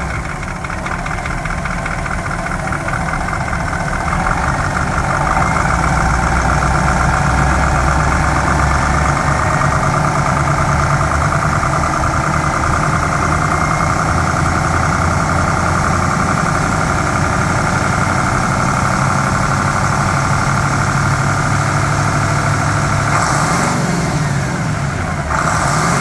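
Caterpillar 3208 V8 diesel engine of a 1986 Ford 8000 truck idling steadily, heard up close at the open engine bay.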